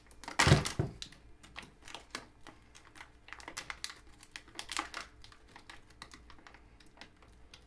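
A knife slitting and working at a vacuum-sealed plastic filament bag: a single loud knock about half a second in, then a run of small, irregular crackling clicks from the plastic.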